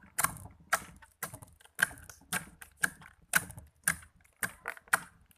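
Slime being squished and stretched by hand, giving off sharp, wet clicking pops about twice a second.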